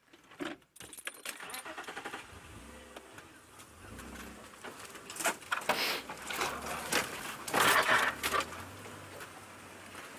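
Safari game-drive vehicle driving over rough ground: its engine runs under a constant rattle and clatter from the bodywork, with heavier jolts around five to eight seconds in.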